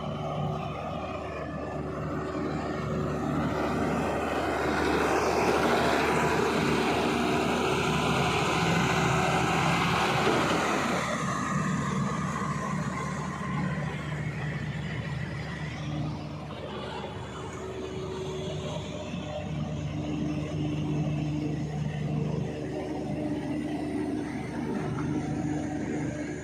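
Heavy machine's diesel engine running, growing louder with a rushing noise for several seconds in the first half, then settling back to a steady run.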